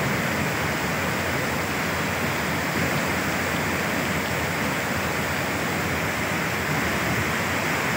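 Steady rushing of muddy floodwater, an even, unbroken noise.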